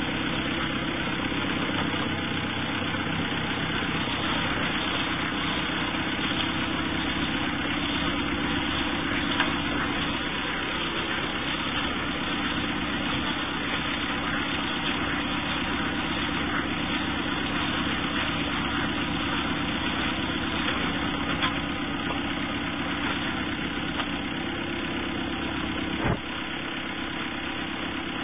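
Tractor engine running steadily while powering a collecting bale wrapper, with a few brief knocks from the machinery. About 26 seconds in the running sound steps down a little.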